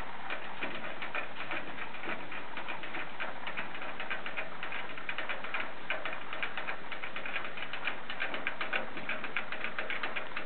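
Two ferrets licking the metal spout of a hanging gravity water bottle: a continuous fast patter of small clicks and ticks as their tongues work the drinking tube.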